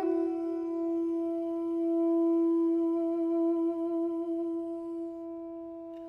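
Background music: a wind instrument holds one long note, swelling and then slowly fading.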